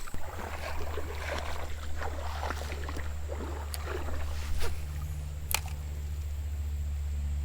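Water sloshing and splashing in irregular strokes for the first few seconds, over a steady low rumble, with a sharp click about five and a half seconds in.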